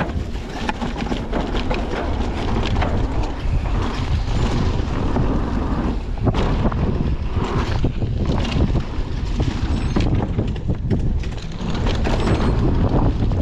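Wind buffeting the microphone of a mountain bike's rider-mounted camera on a fast descent, a steady low rumble, with the tyres rolling over packed dirt and dry leaves and the bike rattling in short clicks over the bumps.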